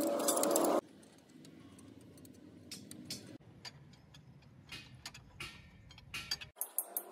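Scattered light metallic clicks and clinks of tools and steel parts at an opened tractor differential housing.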